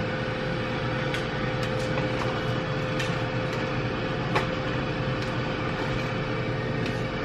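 Air fryer running: a steady fan whir with a constant hum, with a few light clicks over it.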